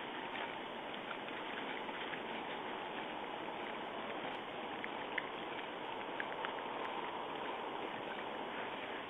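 A steady outdoor hiss with a few faint scattered clicks and crunches from raccoon dogs foraging and feeding on the ground.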